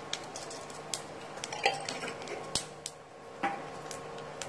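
Fennel seeds dropped into hot oil in a nonstick kadai, with scattered sharp pops and clicks, the loudest about three and a half seconds in, over a faint steady hum.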